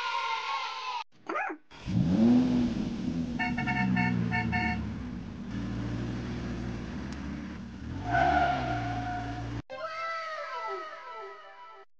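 Car engine sound effect: an engine starting with a rising pitch, then running steadily, with three quick horn toots soon after it starts. It cuts off abruptly and is followed by a string of falling cartoon whistle effects.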